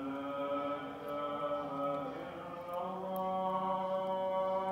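Slow, chant-like vocal music of long held notes, the pitch stepping down about three seconds in.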